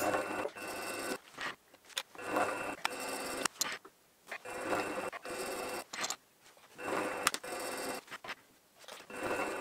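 Milling machine spindle running in repeated spells of about a second with short pauses between them, a steady whine in each, as it power-taps threads into drilled holes in a mild steel plate with a machine tap.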